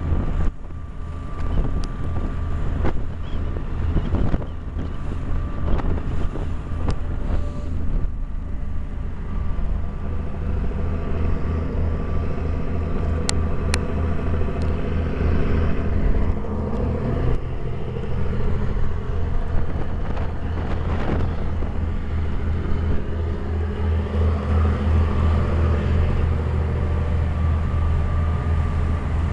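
A boat's engine running steadily with a low, pulsing drone, heard on deck over the rush of water churning alongside the hull. A few sharp knocks come in the first several seconds.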